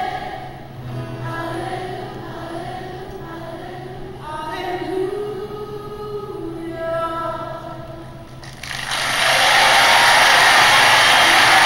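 A man and a woman sing the closing 'alleluia' of a gospel song; about eight and a half seconds in the singing stops and a large audience breaks into loud applause.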